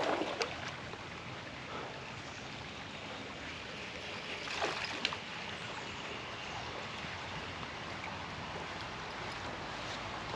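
Steady rush of flowing stream water, with a brief louder noise about halfway through.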